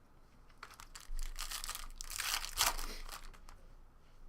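Trading-card pack wrapper crinkling and tearing as it is opened, in a few seconds of rustling.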